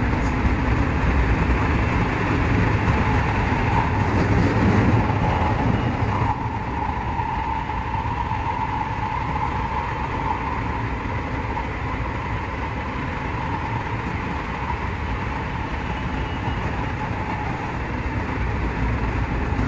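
A JR West 207 series electric train running through a tunnel, heard from inside the driver's cab: a steady rumble of wheels and running gear. About six seconds in, the sound drops a little and thins, and a steady whine carries on above the rumble.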